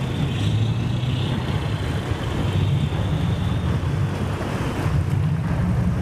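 Steady low drone of a rigid-hull inflatable boat's engine heard from aboard while under way, with water rushing along the hull and wind buffeting the microphone.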